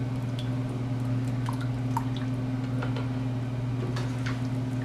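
Canned stewed tomatoes squishing, plopping and dripping from the can into a stew pot, over a steady low hum.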